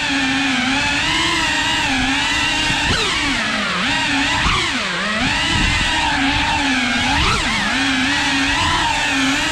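Cinewoop FPV quadcopter's brushless motors and ducted propellers whining, the pitch wavering up and down constantly with throttle and dipping sharply a few times.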